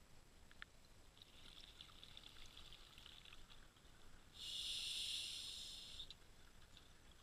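A scuba diver breathing through a regulator, heard underwater: a soft crackle of bubbles, then a louder rush of exhaled bubbles about four and a half seconds in that lasts over a second.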